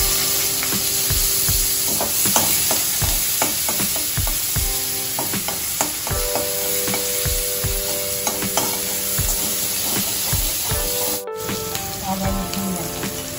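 Hot oil sizzling in a frying pan while a spatula stirs and scrapes against it in quick, uneven strokes.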